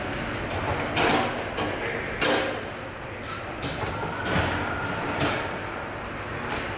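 Ice hockey rink ambience in a large echoing hall: a steady background din with faint, indistinct voices, broken by about five sharp knocks and clacks from players' sticks and gear on the ice.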